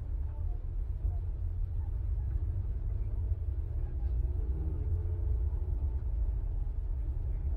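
A steady low rumble with faint, indistinct voices of people talking around the car.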